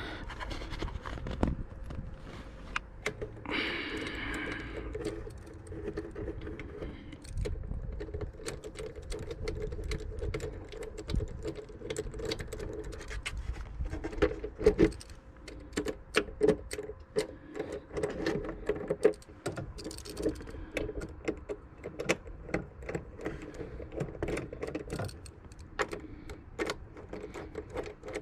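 Irregular metallic clicks and clinks of hand tools and loose bolts as the engine cover's 10 mm bolts are removed, over a steady hum.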